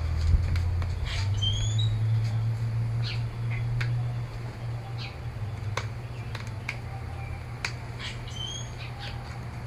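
Scattered small clicks and snaps of a Samsung Galaxy Tab 4's plastic back cover being pried loose, over a low steady hum. Two short rising bird chirps come about a second and a half in and again near the end.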